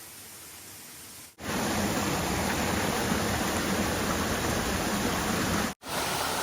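Steady rush of a waterfall's falling water. A quieter hiss gives way abruptly to the loud rush about a second and a half in, and the sound drops out for an instant near the end.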